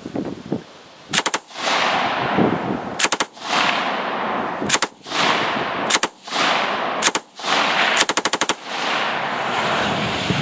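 M249 SAW light machine gun firing 5.56 mm tracer rounds in six short bursts, the last and longest near the end. Loud rushing noise fills the gaps between bursts.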